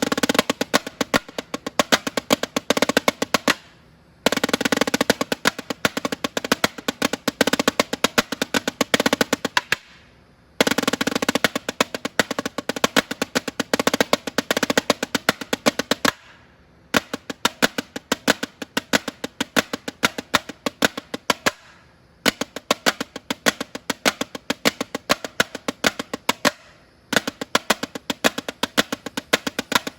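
Snare drum played in fast freestyle runs and rolls: phrases of rapid strokes broken by short pauses about every five or six seconds.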